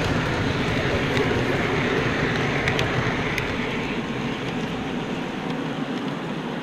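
O scale model freight train rolling past on the track, a steady rolling rumble with a few light clicks. It fades slowly as the last cars and the caboose move away.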